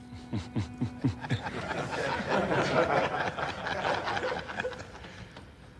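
A group of men laughing: a few short laughs that drop in pitch, then many voices laughing together, dying down toward the end.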